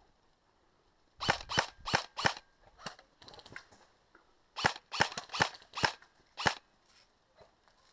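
Airsoft guns firing single shots: about a dozen sharp snaps in two irregular strings, with a pause of about a second between them.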